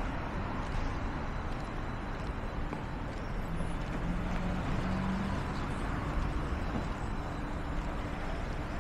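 City street traffic: cars and buses driving past, a steady rumble of engines and tyres, with a low droning tone for a second or two near the middle.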